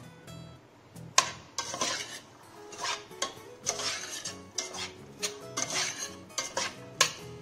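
A metal spoon stirring chopped green capsicum and minced chicken in a stainless steel pot, with irregular clinks and scrapes of metal on metal starting about a second in. Soft background music runs underneath.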